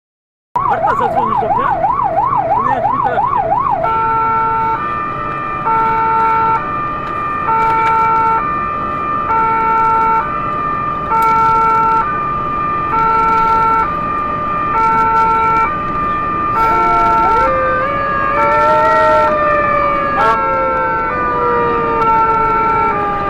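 Renault GBA fire engine's siren on an emergency run: a fast yelp warble for the first few seconds, then the hi-lo two-tone, each note held about 0.7 s. About 17 s in, a second siren rises and then slowly winds down in pitch under the two-tone.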